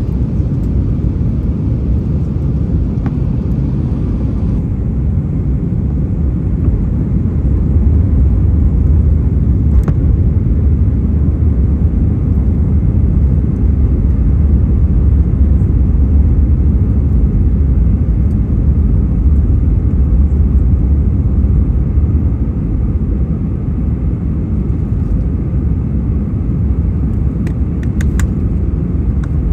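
Steady low rumble of cabin noise in an Airbus A319 airliner, growing deeper and heavier for a stretch in the middle.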